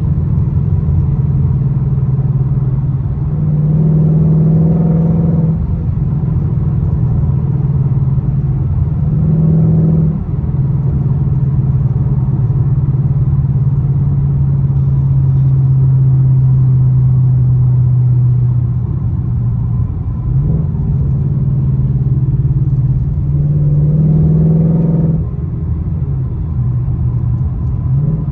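Ford Mustang GT's V8 and loud exhaust heard from inside the cabin while driving, a steady low drone that swells louder under throttle three times, about four, nine and twenty-four seconds in, then settles back.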